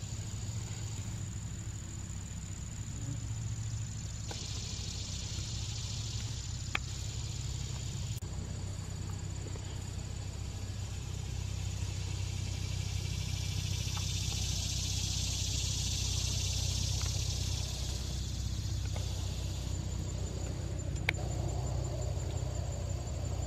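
Summer insect chorus at a pond: a steady high trill with a buzzing swell that rises and fades about halfway through, over a low steady rumble like distant traffic. Two faint clicks, about a third of the way in and near the end.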